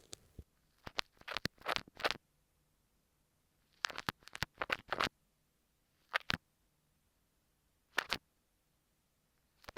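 An earphone microphone being scratched and rubbed by an ASMR trigger tool, in about six short bursts with dead silence between them.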